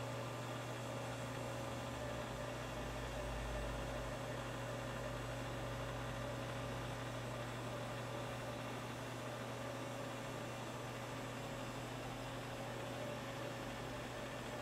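Steady electrical hum under a constant hiss, with a faint low rumble swelling about two seconds in and fading a few seconds later.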